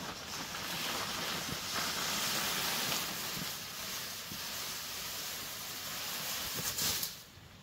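A large bundle of cut fern fronds rustling as it is carried on someone's back and set down. The rustling stops suddenly about seven seconds in, with a few sharp clicks.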